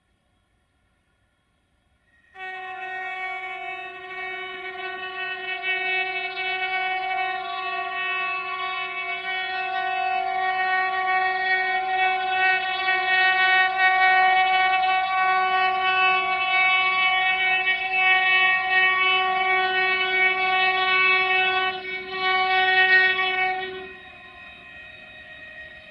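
Horn of a BR232 'Ludmilla' diesel locomotive sounding one long blast of about twenty seconds, several tones together. It starts abruptly about two seconds in, dips briefly near the end, then stops, leaving the fainter sound of the approaching train.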